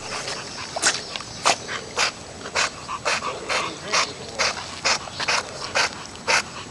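A dog panting hard in a steady rhythm, about two breaths a second.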